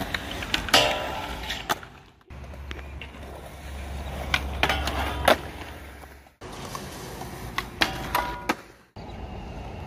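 Skateboard wheels rolling on smooth concrete, with sharp pops and landing clacks and the metallic ring of the board sliding along a steel handrail. The sound breaks off and restarts abruptly a few times.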